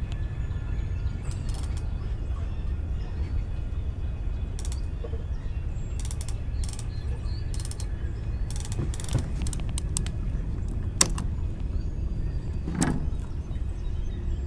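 Baitcasting reel's clicker ticking in short, irregular runs as line is pulled off by something working the bait, a bite the angler takes for a turtle. A low steady rumble lies under it, and there is a heavier knock near the end.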